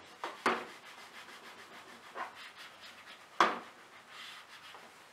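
A whiteboard eraser rubbing across a whiteboard in a series of short wiping strokes, the loudest about three and a half seconds in.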